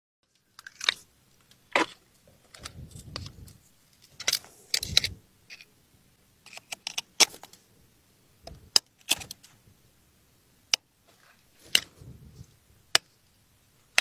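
Oyster shells clacking against a tree trunk and each other as they are stuck onto the bark: about a dozen sharp, separate clicks and knocks at irregular intervals, with a low rumble between some of them.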